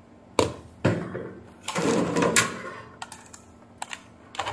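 Multimeter test probes and leads being handled on a workbench, with the probe plugs worked in the meter's input sockets. Two sharp knocks come about half a second and just under a second in, then a longer clatter of leads and plastic around two seconds in, then a few light clicks near the end.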